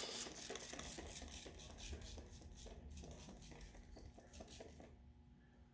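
Dish-soap water being applied to a tire to find an air leak: a rapid run of faint crackles and ticks that fades away about five seconds in.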